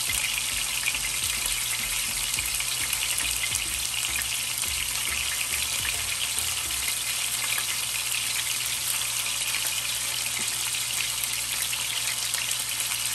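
Cubes of steak frying in hot oil in a skillet: a steady sizzle and crackle.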